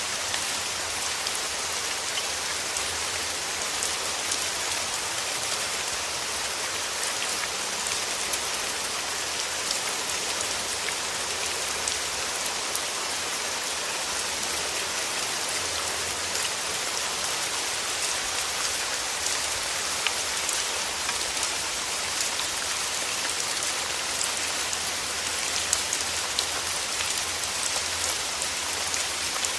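Steady rainfall, a constant hiss of rain with many fine drop ticks on a surface.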